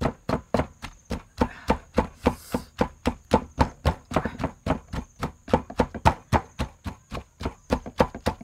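Wooden pestle pounding rhythmically in a mortar full of shredded vegetables and crab, about three to four strokes a second.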